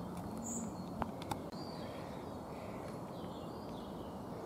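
Outdoor woodland ambience: faint birdsong chirping over a steady low background hum, with two light clicks about a second in.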